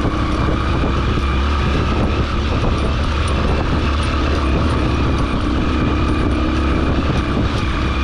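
Motorcycle engine running steadily under load at low speed in a low gear, with short knocks and rattles as the bike goes over loose stones and gravel.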